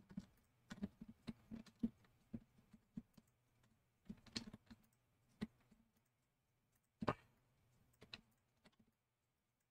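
Faint, irregular clicks of a computer mouse and keyboard, several in the first two seconds, a few more about four seconds in and a double click about seven seconds in.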